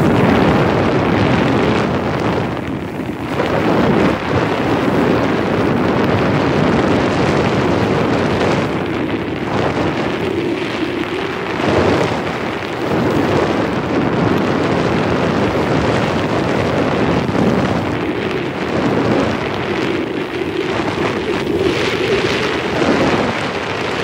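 Loud wind noise buffeting the microphone of a handheld camera during a downhill ski run in strong wind, swelling and easing in gusts.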